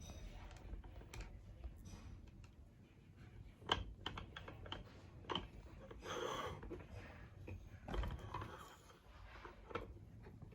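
Faint, scattered clicks and light knocks of small metal parts being handled, with a brief scrape: a locking ring being fitted onto the aluminium rod of a microscope stand.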